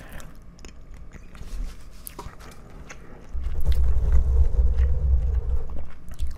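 Soft wet mouth clicks from gum chewing close to the microphones. About three seconds in, hands start rubbing the foam windscreens of the two microphones, a loud, low rubbing sound that goes on steadily.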